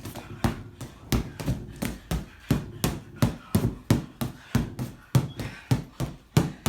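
Fast, steady punches landing on a punching bag, about three thuds a second.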